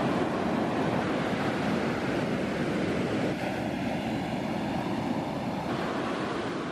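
Ocean surf breaking and washing onto a beach, a steady rushing noise that eases a little about three seconds in.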